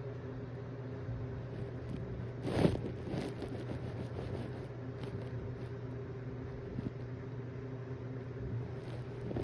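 One short, loud bodily gas noise from a person about two and a half seconds in, over a steady low hum.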